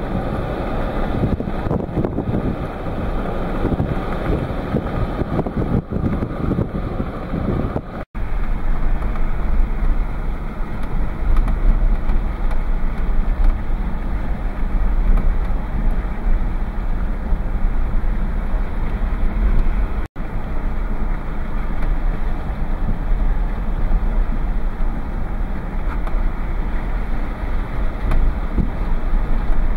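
Steady road and wind noise of a car driving along, with a deep low rumble. The sound cuts out for an instant twice.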